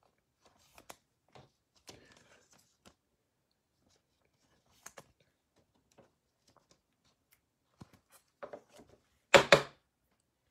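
Trading cards and a clear plastic card holder handled by hand: faint scattered clicks and rustles, then a short, louder clatter of plastic about nine seconds in.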